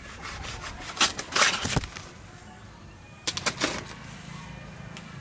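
Banana leaves rustling and tearing as they are pulled and cut from the plant: a long crackly burst about a second in and a shorter one just past three seconds.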